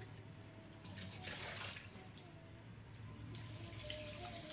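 Faint water splashing and sloshing as hands rinse soaked dried fish in a clay bowl in a stainless steel sink, with a little tap water running.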